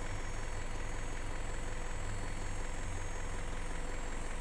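Isuzu NRR truck's diesel engine idling steadily, a low even hum.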